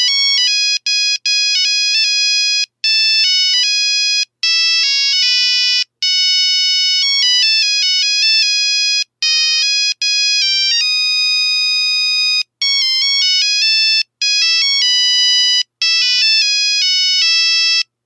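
Nokia 3310 monophonic ringtone playing a quick tune of single notes, one at a time, in short phrases with brief breaks between them, with one long held note about two thirds of the way through.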